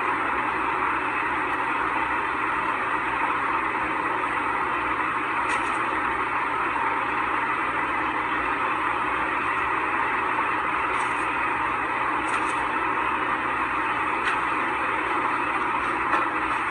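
Steady, even rushing noise with no speech, like static or a constant fan, with a few faint ticks over it.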